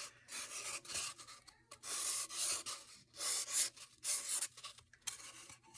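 Sharpie marker drawing on a rain-stick tube: a run of about eight short scratchy strokes in quick succession.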